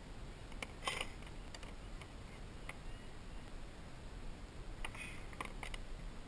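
Light clicks and knocks of handling on a plastic kayak hull as a measuring strip and a caught largemouth bass are moved about, in two short clusters, about a second in and about five seconds in, over a faint steady hiss.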